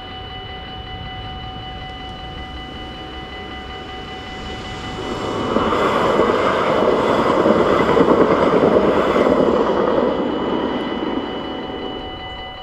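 A tram passes over a level crossing, its rumble swelling from about five seconds in, loudest midway, and fading near the end. Throughout, the crossing's warning bells keep ringing steadily.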